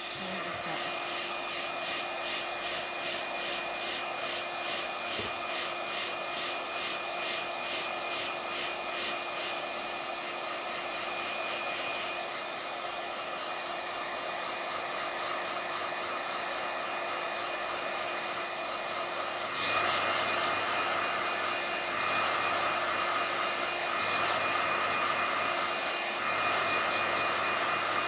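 iTeraCare terahertz wand's built-in fan blowing steadily, an even rush of air with a low hum and a high whine. It gets somewhat louder about two-thirds of the way through.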